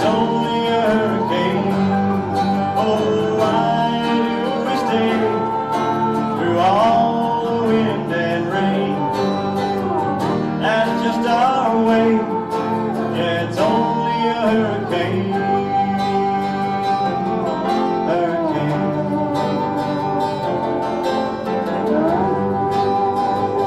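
Live acoustic folk music: steady acoustic guitar strumming under a melody line that slides up into its notes.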